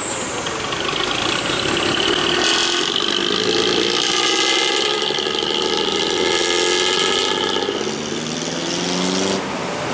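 Bus engine running and revving in slow traffic. Its pitch rises near the end and then drops off suddenly.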